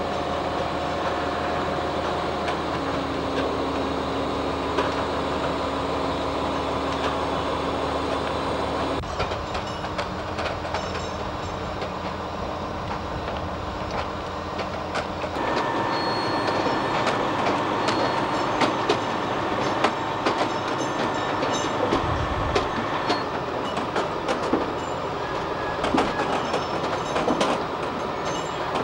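Diesel locomotive hauling a short train of wagons slowly past at close range, its engine running with a steady drone whose note shifts twice. About halfway through a thin high tone joins in, and wheels click over the rail joints more and more often toward the end.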